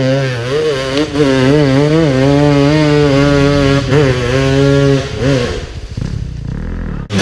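Dirt bike engine revving hard up a steep climb, its pitch wavering up and down with the throttle. Near the end it drops and fades as the bike pulls away over the crest.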